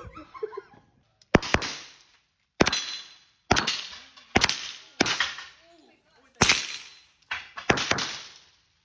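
AR-15-style rifle fired in single shots at an uneven, unhurried pace, about eight shots, each trailing off in an echo.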